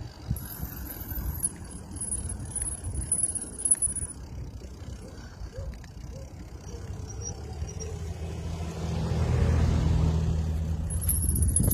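Road rumble and wind on the microphone of a bicycle rolling downhill. Near the end a motor vehicle's engine swells up loud as it passes close by. A high, thin whine sounds over the first few seconds and comes back just before the end.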